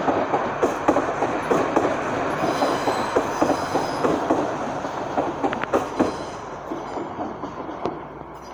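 Hitachi intercity express train (GWR Class 800/802 type) rolling past at close range, its wheels clicking over rail joints in a rapid, irregular rhythm, with a brief high whine about three seconds in. The sound fades over the last few seconds as the end of the train goes by.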